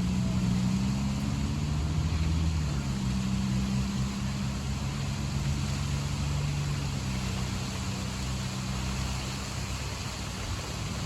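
Steady rain hiss with a low, steady engine hum underneath that shifts pitch slightly about three seconds in.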